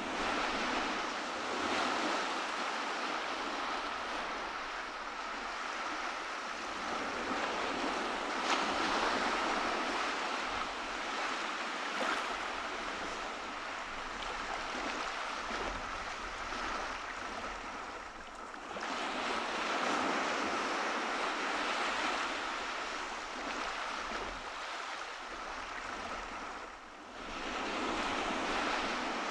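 Ocean surf breaking and washing onto a beach in a steady rush, with short lulls about two-thirds of the way through and near the end, each followed by a fresh wave breaking.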